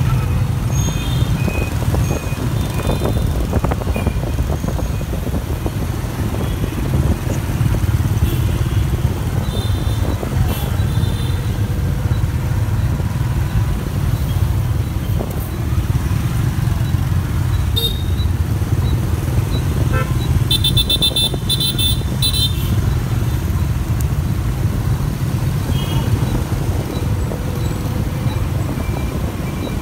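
Steady low rumble of riding a motorbike through city traffic, with horns giving short beeps now and then and a quick run of repeated beeps about two-thirds of the way through.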